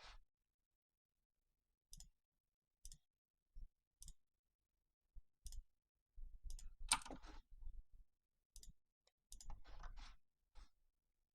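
Faint computer mouse clicking, single clicks every second or so with denser runs of clicks about seven and ten seconds in.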